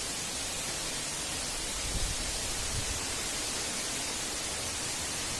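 Waterfall's falling water, a steady rushing hiss, with a couple of faint low bumps about two seconds in.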